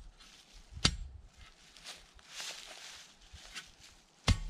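Steel T-post being pushed and worked into the ground by hand, among dry leaves: a sharp knock about a second in and another near the end, with scraping and leaf rustling between.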